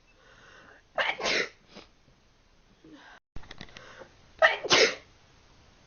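A person sneezing twice, once about a second in and again, louder, past the middle, each sneeze a sharp two-part burst.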